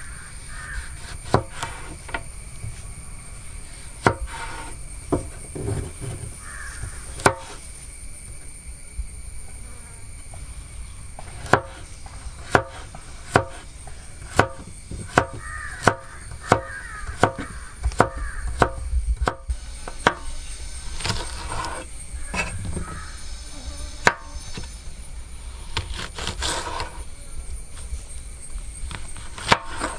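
A large, heavy kitchen knife chopping carrots on a wooden cutting board: sharp knocks of the blade striking the board. The strokes come singly at first, then in a quick, even run of about one chop every three-quarters of a second near the middle.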